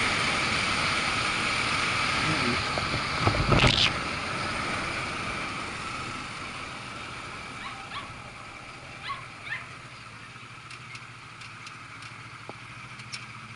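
Motorcycle riding noise: wind rushing over a helmet-mounted microphone with the engine running, dying away as the bike slows and pulls over to a stop. A thump about three and a half seconds in, and a few faint clicks once the bike has stopped.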